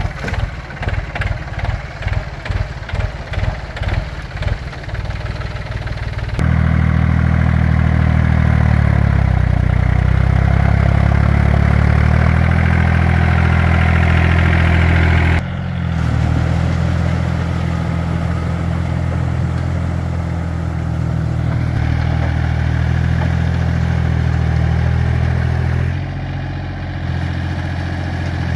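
Farm tractor engine running in slow, pulsing beats of about two to three a second, then about six seconds in it rises to a loud, steady run with a slightly wavering pitch, dipping briefly about fifteen seconds in before carrying on.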